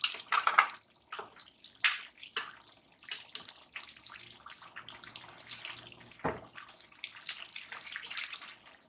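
Ground onion paste being spooned and emptied into a pot of cooking chicken korma: irregular wet slops and splats, with one heavier thud about six seconds in.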